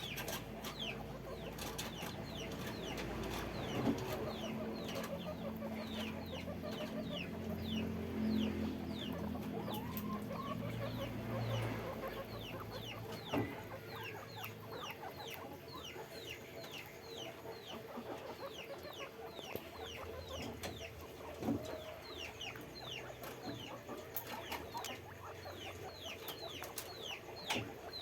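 Guinea pigs squeaking: a steady stream of short, high, falling squeaks, several a second. A low rumble runs under them for roughly the first half.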